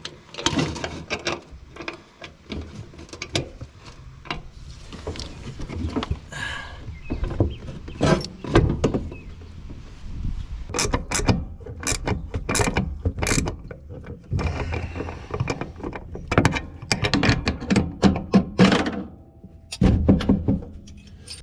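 Hand tools working a bolt into a skid loader's fitting: irregular metal clicks and knocks, with a quick run of sharp clicks about halfway through.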